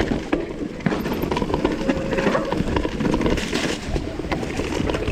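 Mountain bike ridden over rough trail: tyres rumbling and the bike rattling with constant small knocks, under wind noise on the microphone.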